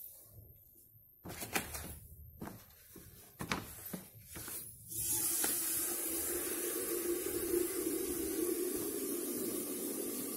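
Paper rustling and crackling as sheets of coloured paper are handled and pressed onto a cardboard shelf unit. About halfway through a steady hiss starts and runs on, louder than the rustling.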